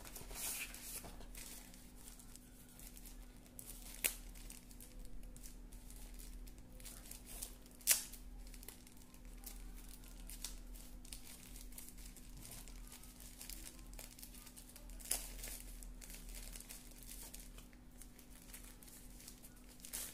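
Plastic packaging wrap crinkling and rustling as it is handled and pulled open, with three sharp clicks or taps, the loudest about eight seconds in.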